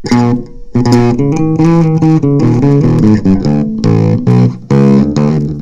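Electric bass guitar played solo: a quick run of plucked notes, with a short break about half a second in.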